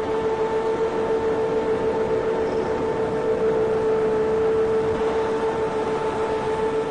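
Neoteric hovercraft running under way, a steady high-pitched drone from its engine and fan over a constant rush of air.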